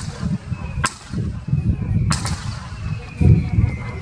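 Aerial firework shells bursting in sharp cracks, roughly one a second, with a pair close together about two seconds in. A low rumble runs underneath and swells near the end.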